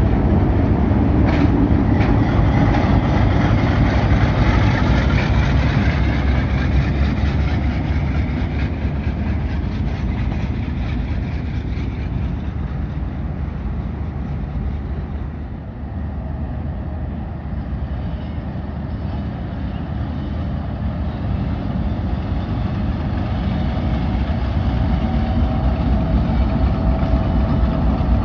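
A train running on the tracks: a diesel locomotive's engine and the rumble of the wagons. It eases off about halfway through and builds up again near the end.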